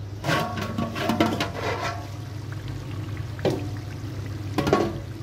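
Water poured into a large aluminium pot of frying meat and onions, then two sharp knocks of a metal ladle against the pot.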